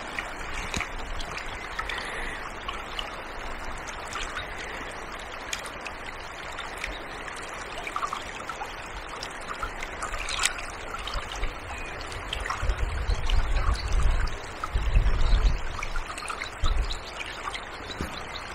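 Fast-flowing river water running and rippling steadily over shallows. From about twelve seconds in, gusts of wind buffet the microphone with a low rumble.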